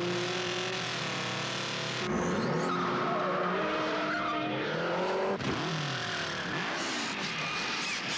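Yamaha XJ650 Turbo motorcycle and car engines revving up and down in a chase, with tyre squeals and a sharp knock about five seconds in.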